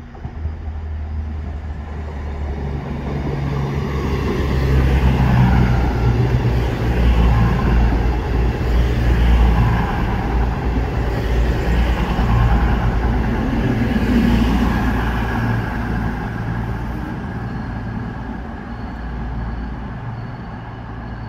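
Avanti West Coast class 221 Voyager diesel multiple unit arriving at a platform, its underfloor diesel engines humming. It grows louder as it draws in, is loudest as it passes close by, then fades as it runs on and slows.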